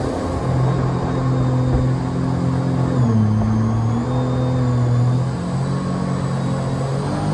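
Mini jet boat's engine running steadily under way, driving the boat along at an even pace. Its pitch shifts slightly a few times as the throttle eases and picks up.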